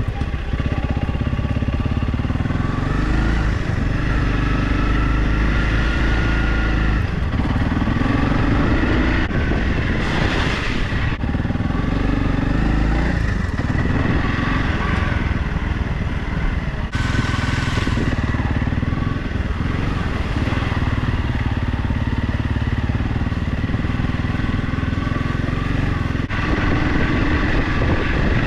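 Motorcycle engine running while riding, its note rising and falling with the throttle. Two short rushes of noise come through, about ten seconds in and again around seventeen seconds.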